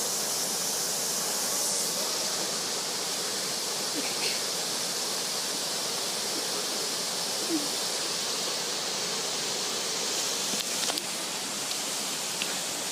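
Steady rush of running water, an even hiss with no change in level, with a few faint ticks.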